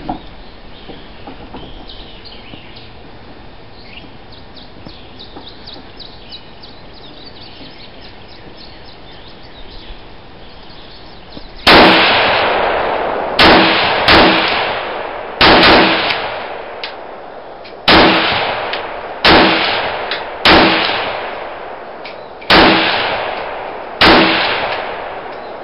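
Yugoslavian M59/66 SKS rifle (7.62×39 mm) fired nine times, singly and in quick pairs under a second apart, each shot echoing away. Birds chirp faintly for about the first half before the first shot.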